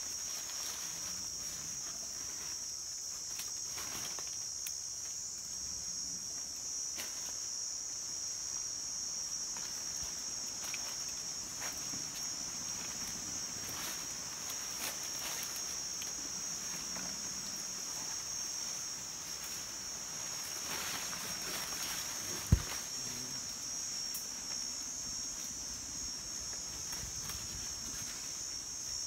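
Steady, high-pitched insect chorus of forest crickets or cicadas. One sharp click cuts through it about three-quarters of the way in.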